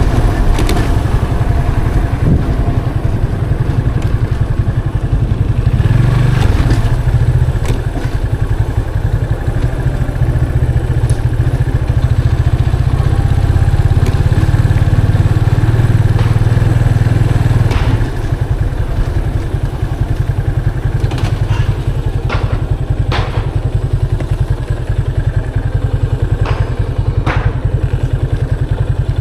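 Yamaha FZ 25's 249cc single-cylinder engine running while riding, through the stock exhaust. The engine sound drops a little about two-thirds of the way in, and several short clicks or knocks come near the end.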